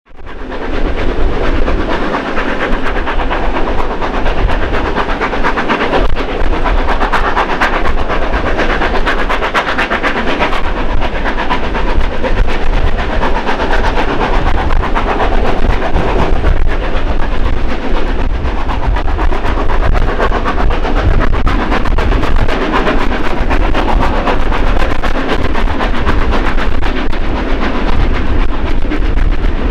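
Steam locomotives NSW 30 class 3016 and 36 class 3642 hauling a train, heard from a carriage behind them. Rapid exhaust beats run over the steady rumble and clatter of wheels and carriages. The sound fades in at the very start.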